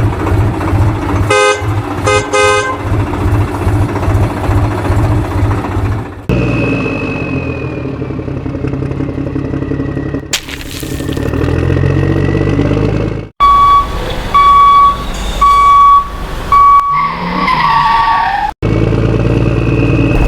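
A string of truck sound effects: a diesel-like engine chugging with two short horn honks near the start, then steady engine running, then repeated high beeps and a falling tone, each part cut sharply into the next.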